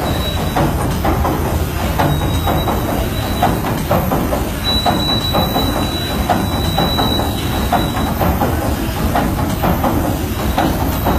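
The Waverley's triple-expansion diagonal steam engine running at speed: a steady mechanical rumble with a rhythmic clatter and knocking from the cranks and connecting rods, and a thin high whine that comes and goes.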